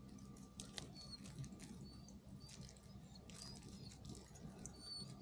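Wood campfire crackling faintly: scattered sharp pops and clicks, with a few short high-pitched squeaks.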